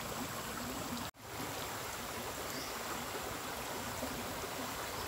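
Steady flow of a small stream, with a brief dropout about a second in.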